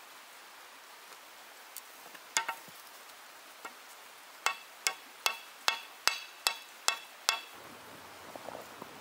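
Stone hammer striking red-hot iron axe stock on a boulder anvil: a single blow about two seconds in, then a run of eight even blows at about two and a half a second, each with a short metallic ring. A steady hiss lies under it.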